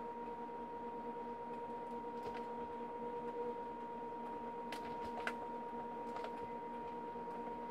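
Dry-erase marker squeaking and scratching on a whiteboard in a few short strokes, over a steady hum.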